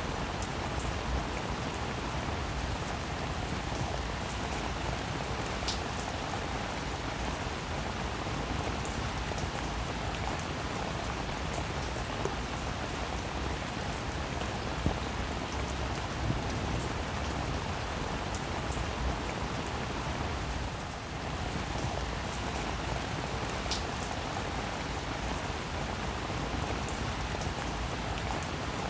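Steady rain pattering on glass, with now and then a sharper tick of a single louder drop. There is a brief lull about three quarters of the way through.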